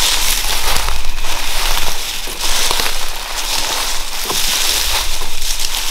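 Footsteps of several people crunching and rustling through dry leaf litter on the forest floor, a steady crackle.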